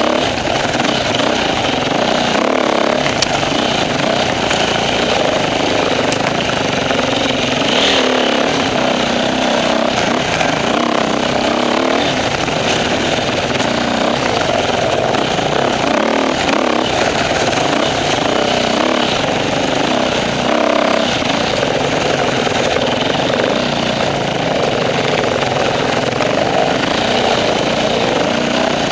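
Off-road motorcycle engine running close to the microphone, heard from the rider's own bike, its pitch rising and falling continuously with the throttle as it picks along a trail.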